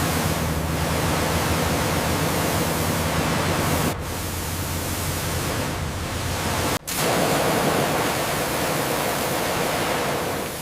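A loud, steady rushing hiss, with a low hum beneath it for the first four seconds. It changes abruptly, as at a cut, about four seconds in and again about seven seconds in.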